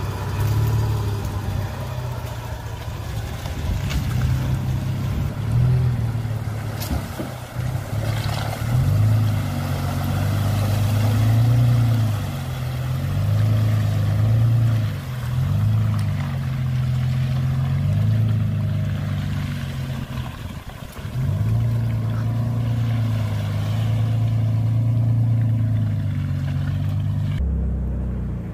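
Toyota Tacoma pickup engine revving up and easing off again and again as the truck pushes through a muddy, water-filled rut on a dirt trail, heard from outside the truck.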